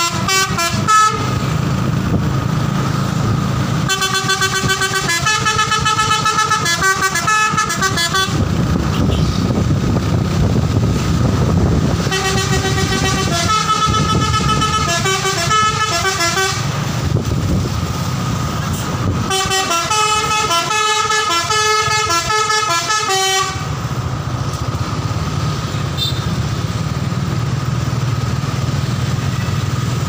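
A bus's telolet horn, a multi-note musical air horn, plays a melody of quickly stepping notes. It sounds in three long bursts of about four seconds each, and the end of another is heard in the first second. Between the bursts there is a steady low rumble of traffic engines.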